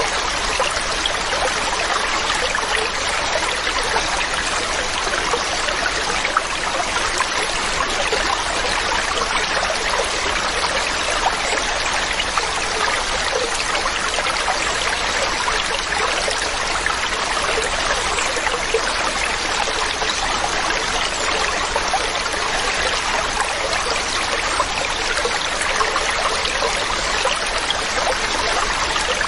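Waterfall: water splashing and rushing steadily, an even hiss-like sound that never changes in level.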